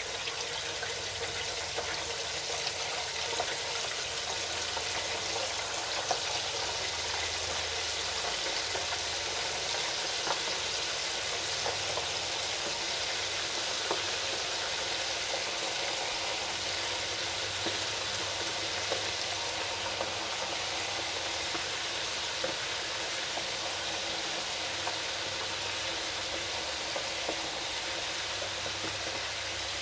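Pork skins deep-frying in an electric deep fryer: a steady sizzle and bubbling of hot oil, with scattered small pops.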